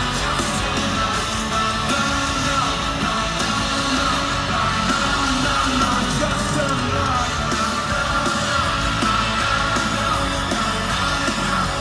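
Live rock band playing loud pop-punk with electric guitars and drums, with voices singing and yelling over the music, heard through a phone in the crowd.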